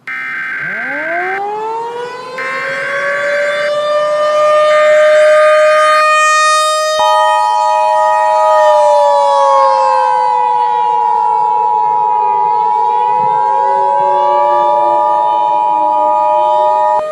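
Emergency Alert System tones over an outdoor warning siren. Three short data bursts of the EAS header are followed, about seven seconds in, by the steady two-tone attention signal. Underneath, the siren winds up from low, holds, then falls and rises again in a slow wail.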